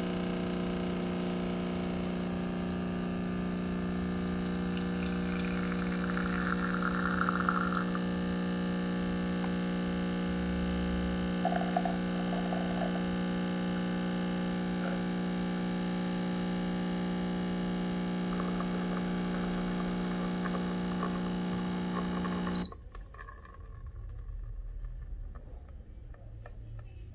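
Biolomix CM6863 espresso machine's pump buzzing steadily while it pulls a shot through a bottomless portafilter, with a brief hiss about a quarter of the way through. The pump cuts off suddenly near the end of the shot.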